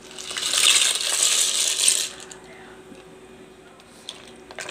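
Dry pasta shells rattling and clattering as they slide out of a bowl into a pot of simmering broth, for about two seconds. A couple of light knocks from a wooden spoon stirring the pot near the end.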